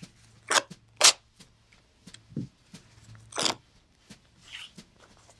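Short crisp snips and scrapes of a small blade cutting stitches and prying apart the glued leather and cotton layers of a wallet, with sharper strokes about half a second and one second in and a slightly longer rasp about three and a half seconds in.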